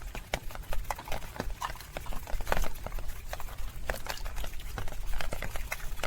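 Rainwater dripping and splashing in irregular sharp taps, a few a second, over a faint hiss and a low rumble.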